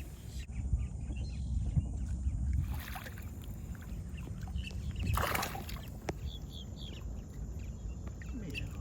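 A steady low rumble with faint high bird chirps and a brief rush of noise about five seconds in.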